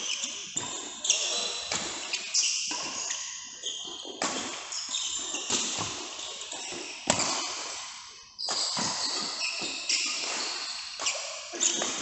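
Badminton play: sharp racket hits on the shuttlecock at irregular intervals, with short high squeaks of court shoes on the floor between them.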